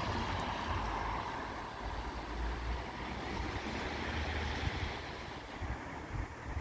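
Wind buffeting the microphone in gusts, over a rushing hiss that fades about five seconds in.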